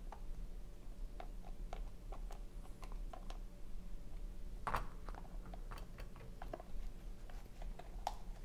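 Faint scattered clicks and ticks of a screwdriver and hands working on a plastic Look Keo cleat bolted to a cycling shoe's sole, with one louder click a little under five seconds in, over a steady low hum.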